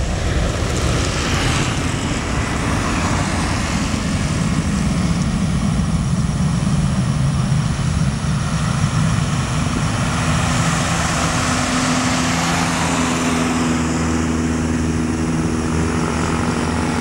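Jet engine noise from a departing Boeing 737-900ER's twin CFM56-7B turbofans at takeoff thrust: a steady roar with a deep rumble. About ten seconds in, a low steady drone comes through and the higher hiss thins out.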